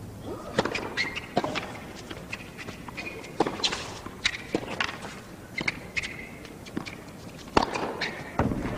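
Tennis racquets striking the ball back and forth in a rally on a hard court, a string of sharp pops about a second apart, with short shoe squeaks as the players move.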